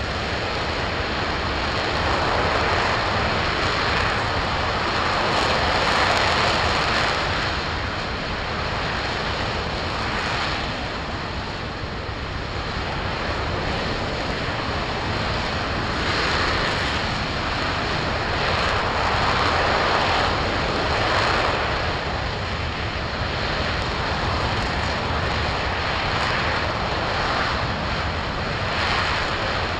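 RS-25 liquid-hydrogen/liquid-oxygen rocket engine firing continuously during a long-duration hot-fire test, about four minutes into the burn: a loud, steady rushing noise that swells and eases slightly every few seconds.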